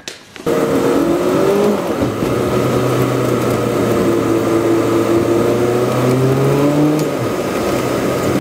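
Car engine running under way, heard from inside the cabin with road noise, its tone shifting slowly as it pulls along. It starts suddenly about half a second in.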